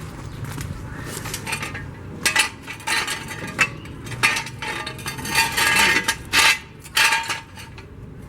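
Metal hand tools and parts clinking and clanking, metal on metal, in a string of sharp knocks starting about two seconds in.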